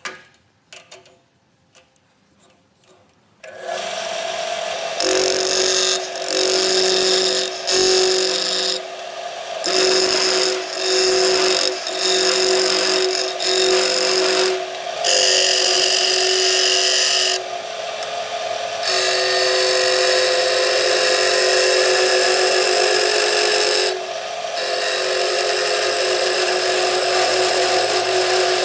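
A few light clicks at the lathe chuck, then a small wood lathe starts with a steady hum about three and a half seconds in. A skew chisel cuts the spinning wooden block with a loud scraping hiss: short cuts about a second long at first, then longer, unbroken cuts.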